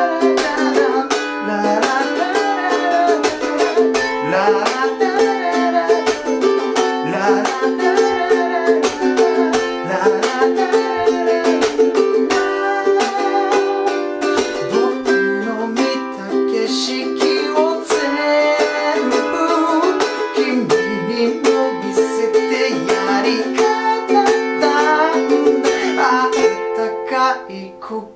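A G-Labo thin Usulele Gaz-model ukulele playing an instrumental passage: driving rhythmic strumming with many sharp percussive strokes, held chords and a melody line on top. The playing briefly drops away near the end and then picks up again.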